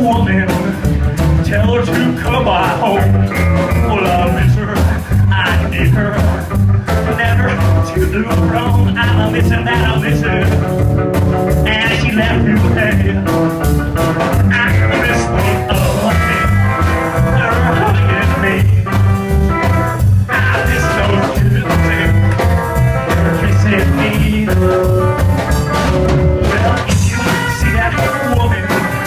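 Live rockabilly band playing a loud, steady uptempo number on upright bass, drum kit, electric guitar and acoustic guitar.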